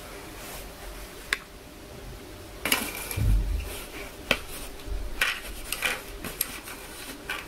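Light clicks and knocks of a plastic spoon and plate being handled on a tabletop, scattered and getting busier toward the end, with one dull bump about three seconds in.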